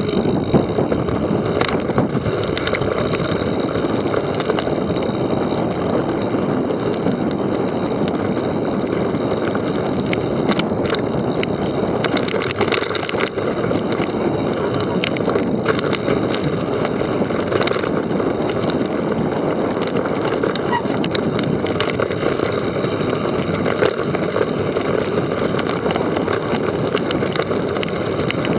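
Steady rushing of wind over the microphone and mountain-bike tyres rolling over a dirt trail on a descent, with scattered clicks and rattles from the bike.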